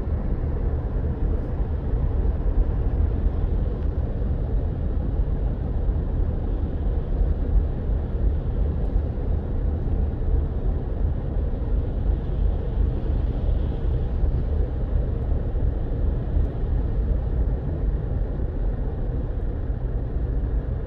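Steady low rumble of a car driving on rain-soaked streets, heard from inside the car: engine and tyres on the wet road.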